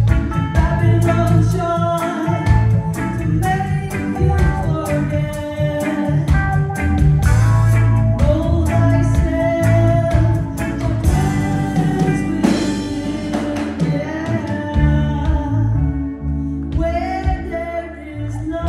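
Live reggae band: a woman singing into a handheld microphone over electric guitar, heavy low bass and a drum kit, heard through the PA.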